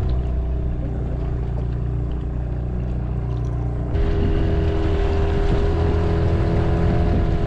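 Outboard motor running steadily, pushing a small fishing boat. About four seconds in, the pitch of the running changes abruptly and it gets a little louder, with more wind and water hiss.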